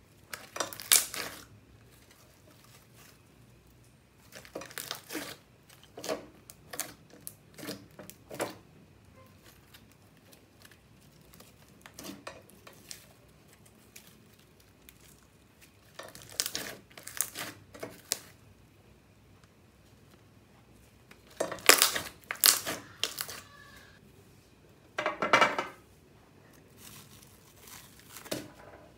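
Fluffy slime being squished, stretched and folded by hand, in separate bursts of crackling with quiet gaps between, loudest about two-thirds of the way through.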